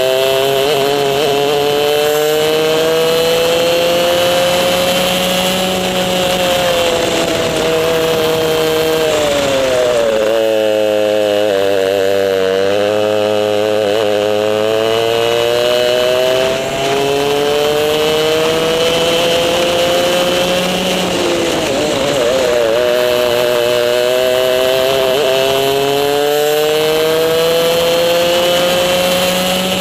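Two-stroke racing kart engine at full throttle, heard close up from on board. Its pitch climbs steadily through each straight and drops sharply as the driver lifts off for corners, about ten seconds in and again about twenty-one seconds in.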